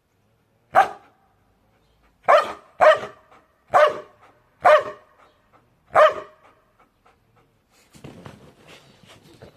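A dog barking six times, single barks spaced about a second apart with two close together. It is followed near the end by a run of fainter, quicker sounds.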